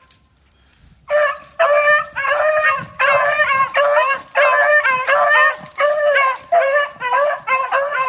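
Beagles baying on a rabbit's scent: a quick run of loud, pitched howling yelps, about two a second, starting about a second in.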